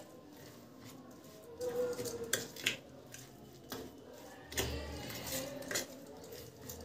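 Metal spoon scraping and clinking against a steel plate while stirring a coarse, oily ground spice mix, in irregular strokes with a few sharper clinks.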